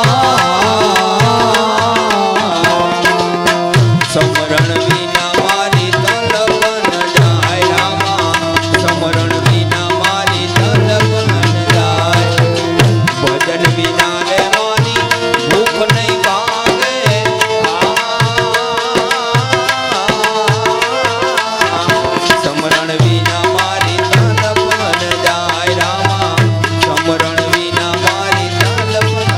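Instrumental interlude of devotional folk music: a hand drum keeps a steady rhythmic beat under a sustained melody, with the clatter and jingle of wooden kartal clappers.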